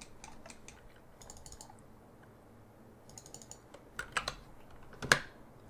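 Computer keyboard clicking in scattered short runs, with a few sharper clicks near the end.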